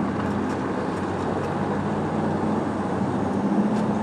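Motorcycle engine running steadily at low speed, a low, even hum under a wash of noise.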